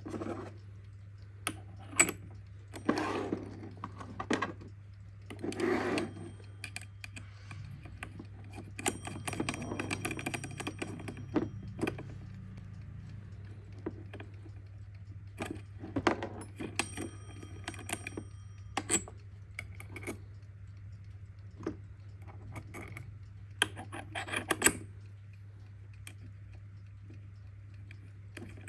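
Irregular small metallic clicks, taps and rattles from handling a Kienzle twin-bell mechanical alarm clock, with a few short spells of faint ringing metal tones.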